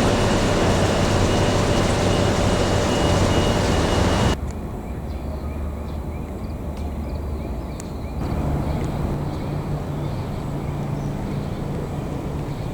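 Loud steady vehicle noise with a thin high whistling tone, cut off abruptly about four seconds in. Then a quieter low engine hum with faint chirps and a few clicks.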